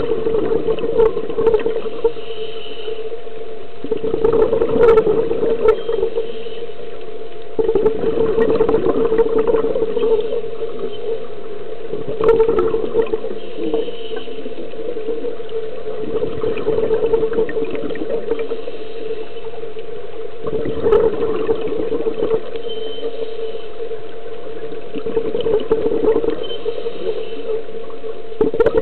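Scuba diver breathing through a regulator, heard underwater: about seven bursts of exhaled bubbles, each one to three seconds long and roughly four seconds apart, over a steady hum.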